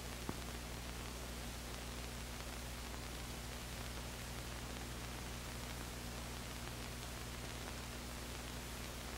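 Steady hiss and low hum of an old film soundtrack, with a single click about a third of a second in.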